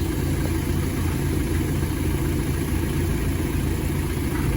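Diesel engine of a 2013 BMW X3 idling steadily with the A/C running and cooling, as the dripping evaporator condensation shows.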